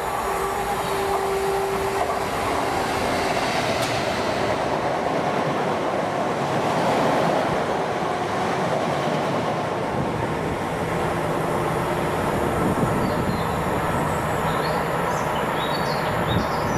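Class 66 diesel-electric freight locomotive passing close by at speed with its engine running, followed by a long rake of bogie tank wagons rolling past with a continuous rumble and rattle of wheels on the rails. A few brief high squeaks come near the end.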